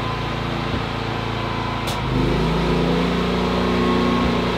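Predator 9500 inverter generator's engine running steadily, then, just after a light click about two seconds in, revving up to a higher, louder speed as it takes the load of an electric heater on full blast.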